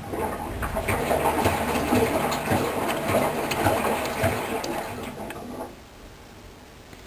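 Hoover washing machine on its wool programme, the drum turning with the wet laundry churning and irregular knocks, then stopping after about six seconds.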